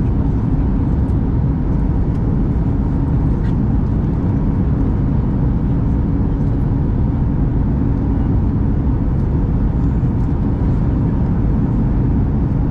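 Steady cabin noise inside a Boeing 737 MAX 8200 airliner in flight: the rush of airflow and the CFM LEAP-1B engines, heavy in the low end, with a faint steady hum over it.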